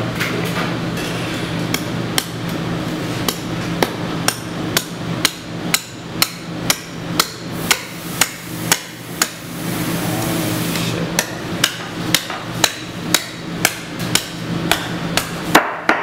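Meat cleaver chopping through a goat carcass's rib bones on a cutting board: sharp strikes about two a second, with a short pause about ten seconds in. A steady low hum runs underneath.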